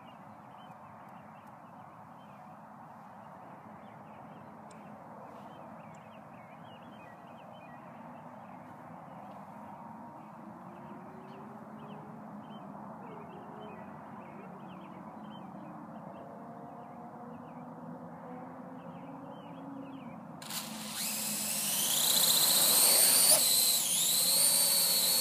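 Parrot AR.Drone 2.0 quadcopter's four motors and propellers spinning up suddenly about 20 seconds in and lifting it off, a loud high whine with propeller buzz that dips in pitch briefly and then holds as it hovers. Before that there is only a faint open-air background with scattered small chirps.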